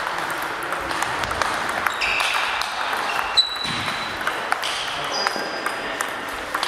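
Table tennis balls ticking off bats and tables, many sharp clicks from the rally and from neighbouring tables, over the hubbub of a large sports hall. A few short high squeaks come through in the middle.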